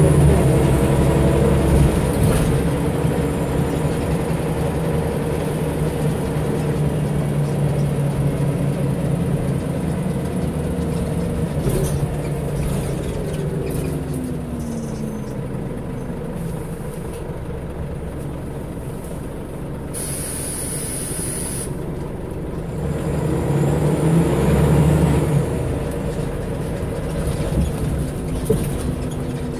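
Scania L94UB bus heard from inside the saloon: the diesel engine running under way through its ZF automatic gearbox, the engine note falling as the bus slows. About two-thirds through comes a short hiss of air, then the engine note rises again as it pulls away.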